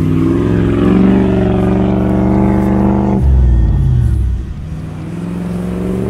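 Land Rover Discovery engine revving as the 4x4 pushes through deep snow: the revs climb and hold, drop suddenly with a low bump about three seconds in and fall away, then rise again near the end.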